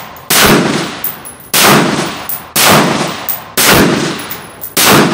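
Five loud shots from an American Tactical Omni Hybrid AR pistol in 5.56 with a muzzle brake, fired about one a second, each sharp crack trailing off in a long echoing tail.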